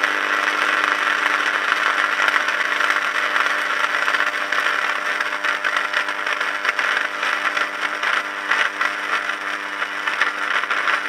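A high-voltage arc from two series-connected microwave oven transformers burns inside an overvolted cooker switch and socket. It makes a loud, steady mains-frequency buzz with a dense crackling hiss over it, as the socket arcs and catches fire.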